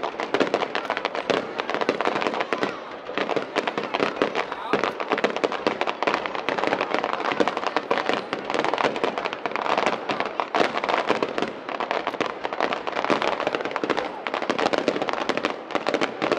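Aerial fireworks display: a dense, unbroken barrage of shell bursts, bangs and crackling, many reports a second with no let-up.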